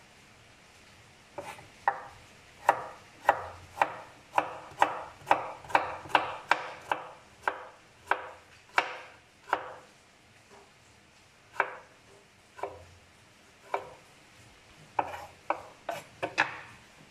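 A chef's knife slicing carrot and eggplant on a wooden cutting board: sharp knocks of the blade striking the board, about two a second for several seconds, then a few spaced strokes and a quick cluster near the end.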